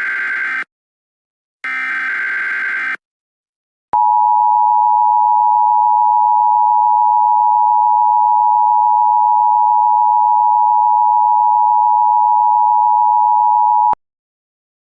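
Emergency Alert System tones: two buzzy digital SAME header data bursts, each about a second and a half long with a second's gap between them, then the EAS two-tone attention signal (853 and 960 Hz together) held steady for about ten seconds and cut off abruptly.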